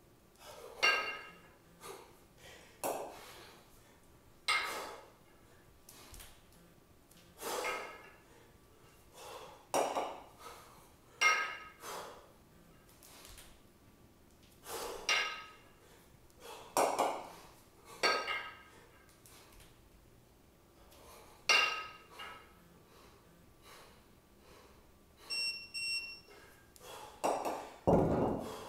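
A pair of 20 kg kettlebells clinking and ringing against each other in sharp knocks every one to three seconds as they are cleaned and jerked in repeated long-cycle reps, with the lifter's breaths between. Near the end a heavy thud as both bells are set down on the floor.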